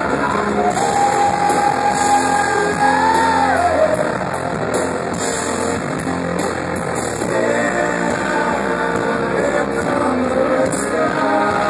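Live rock band playing: guitars and drums under a sung vocal line of long held notes, one sliding down about four seconds in.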